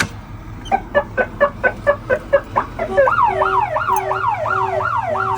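Truck alarm siren set off by opening a locked door: a rapid run of beeps, about five a second, then about three seconds in a fast rising-and-falling warble with a steady tone blinking on and off under it.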